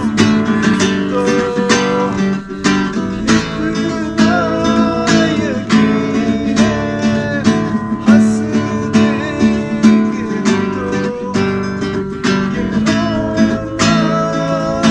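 Music led by a strummed acoustic guitar, with a steady rhythm of strokes over held notes.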